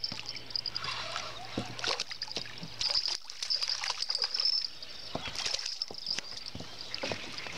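A hooked carp thrashing at the water surface while being played on a rod: irregular splashes and sloshing.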